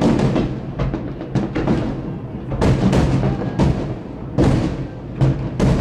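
Fireworks shells exploding in quick, irregular succession, a dozen or more sharp bangs in under six seconds, each trailing off in an echo, over a steady low rumble.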